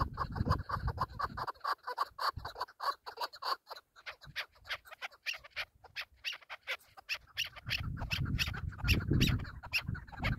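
Chukar partridge calling in a fast, even run of short chuck notes, about five a second. A low rumble comes in at the start and again over the last few seconds.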